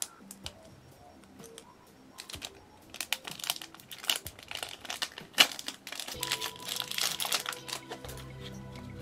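Foil booster pack wrapper crinkling and crackling as it is torn open, a dense flurry of crackles starting about three seconds in, over quiet background music.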